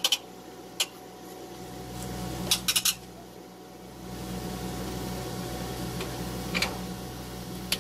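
Kobus KPP400 pipe puller running with a steady mechanical hum as it winds in its steel cable to draw out an old steel gas service pipe, punctuated by a few sharp metallic clinks. The hum grows louder about halfway through.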